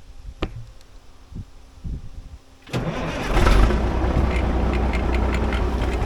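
A few light knocks, then about three seconds in the old International Eagle semi truck's diesel engine turns over, catches and settles into a steady run.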